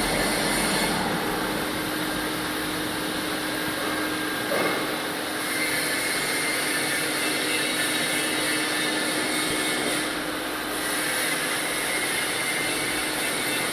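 TIG welding arc burning steadily while filler rod is fed into the puddle: a continuous hiss with a low steady tone underneath.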